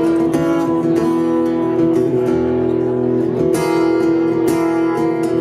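Acoustic guitar played solo, chords strummed and left ringing, with a couple of fresh strums near the end.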